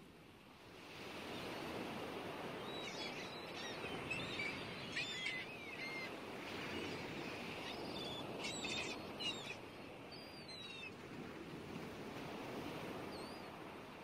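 Birds chirping in short, gliding calls over a steady rushing background noise, with the calls bunched from about three to eleven seconds in and a few faint ones near the end.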